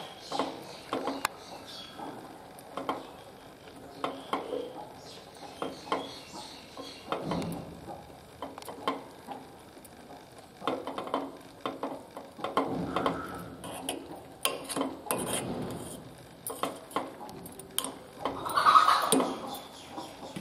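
Steel spoon stirring moringa leaves and grated coconut in a metal pot: repeated irregular clinks and scrapes of the spoon against the pot, with a louder burst of sound about a second before the end.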